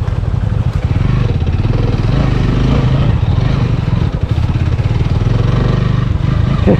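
Motorcycle engine running steadily as the bike is ridden along an off-road trail.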